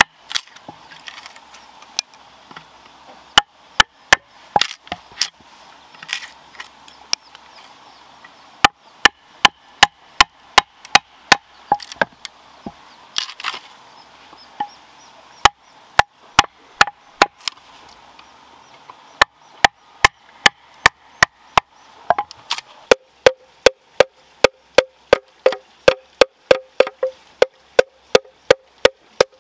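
Wooden club striking the back of a knife blade to split and cut into a green bamboo tube: sharp, irregular knocks. About three-quarters of the way through, the strikes settle into a steady run of about two a second, each with a hollow ringing note.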